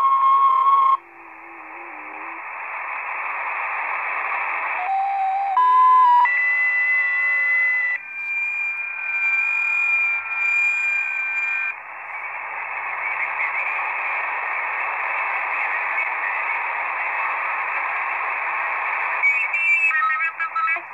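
Shortwave receiver audio in lower sideband while being tuned across the 40-metre amateur band: a band of static hiss broken by steady whistles of several different pitches as carriers are passed, with warbling lines near the end.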